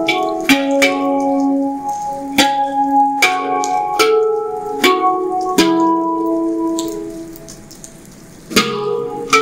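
Omana handpan played by hand: single struck notes ring out and overlap, a new note every half second to a second. Near the end the notes die away in a pause of about a second and a half before the playing resumes.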